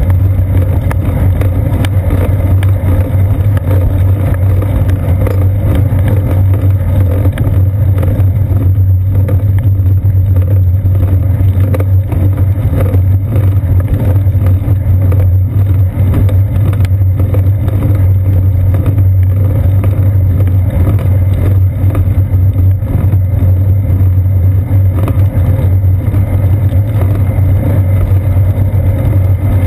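Steady low rumble of wind and road vibration from a bicycle rolling along wet pavement, picked up by a seat-post-mounted GoPro Hero 2 in its sealed housing, dominated by a strong low hum.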